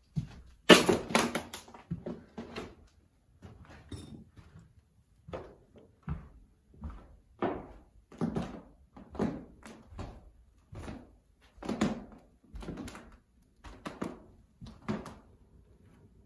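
Footsteps on a carpeted floor, roughly one dull step a second. About a second in there is a louder, brief cluster of sharp knocks and scuffs.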